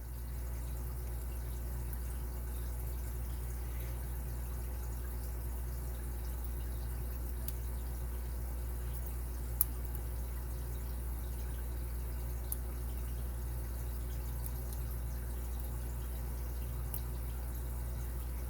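A few faint, sparse clicks of a pick and tension wrench working the pin stacks inside a Lane Security padlock, the clearest about ten seconds in, over a steady low hum.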